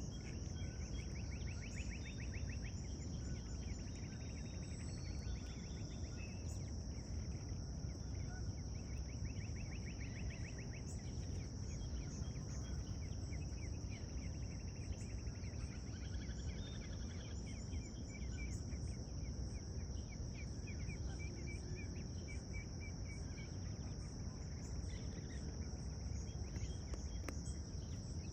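Insects droning steadily at a high pitch over a low, steady background rumble, with a few spells of rapid chirped trills from small birds scattered through.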